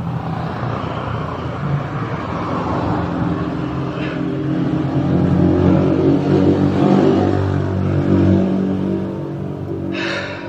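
A motor vehicle's engine running close by, growing louder to a peak over several seconds and then easing off, as if passing.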